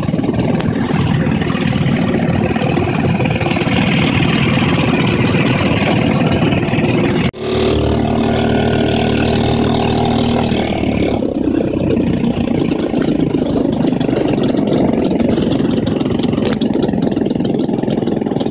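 Open dune buggy's engine running as it drives, mixed with steady wind noise on the microphone. About seven seconds in the sound drops out for an instant, then a steadier engine hum with a clear pitch runs for a few seconds before the rushing noise returns.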